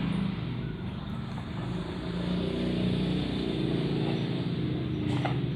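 A motor vehicle's engine running with a steady low hum, with a single faint knock near the end.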